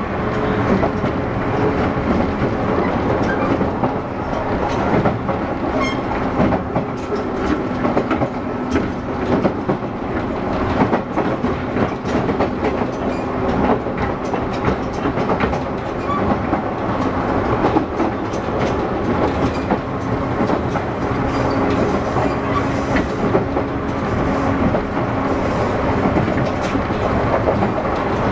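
Onboard running sound of a JR West 117 series 300-subseries electric train, heard inside motor car MoHa 116-312 between stations. Steady running noise with a low motor and gear hum, and wheels clicking over rail joints.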